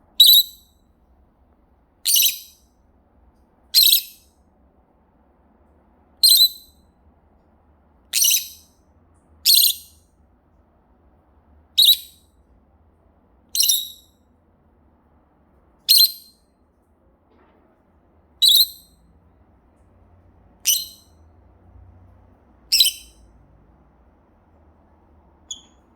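Parrot giving its contact call, the call it makes when looking for its companion: a short, high-pitched call repeated about every two seconds, a dozen times, with a fainter one near the end.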